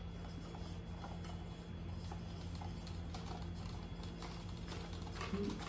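Faint plastic clicks and knocks as a barrel attachment is handled and fitted onto a toy BB rifle, over a low steady hum.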